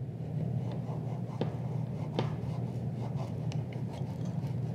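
Spline roller tool pressing screen spline and fiberglass mesh into the channel of a metal screen frame: a steady rubbing, with a few short clicks.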